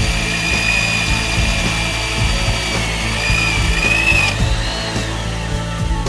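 Corded electric drill's motor whining steadily as a long bit bores through wooden framing, its pitch dipping slightly under load before it stops about four seconds in. Background music plays underneath.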